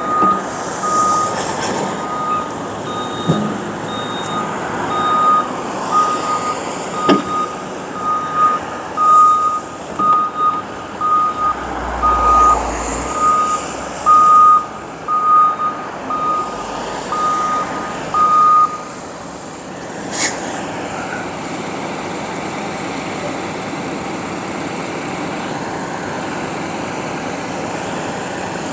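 Garbage truck's reversing alarm beeping about one and a half times a second over its running engine. The beeping stops about 19 seconds in, a short sharp noise follows about a second later, and the engine keeps running steadily.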